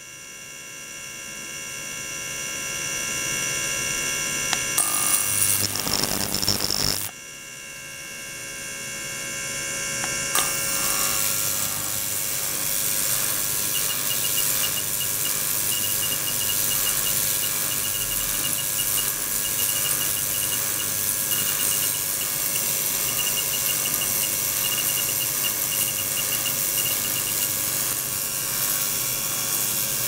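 Steady electrical hum and whine from an ultrasonic test rig, with many high, flat tones over a low buzz. It fades up at the start, drops sharply about seven seconds in, and builds back up over the next few seconds.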